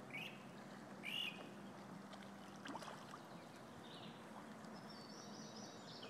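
Faint bird calls: short chirps every second or so, the loudest about a second in, over quiet outdoor background noise, with a few light clicks near the middle.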